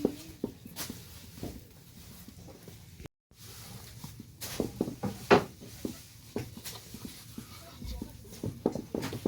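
Scattered light knocks and clicks, like things being handled, with a short louder cluster about five seconds in and a brief cut to silence just after three seconds.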